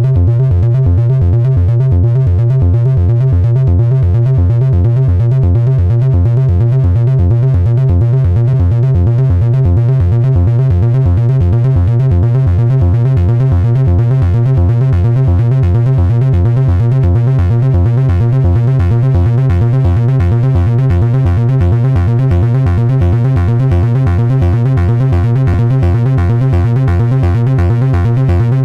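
Behringer 2600 analog synthesizer playing a steady, repeating bass-heavy pulse-wave sequence. Its oscillators' pulse widths and filter resonance are being changed by hand, so the tone shifts slowly and grows brighter in the second half.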